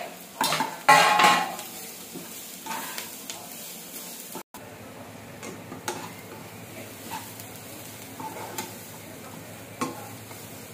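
Grated carrot and chopped onion sizzling in a frying pan while a metal slotted spoon stirs and scrapes them against the pan. Louder knocks and clatter of the spoon come in the first two seconds, then a steady sizzle with occasional scrapes.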